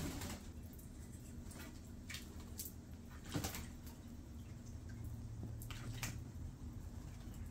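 Water splashing and dripping as a grey butcherbird bathes in a birdbath under a garden sprinkler, with irregular sharp splashes every second or so.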